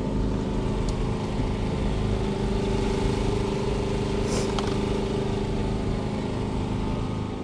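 An engine running steadily at a constant speed, with an even hum, over a low rumble; a brief hiss about four seconds in.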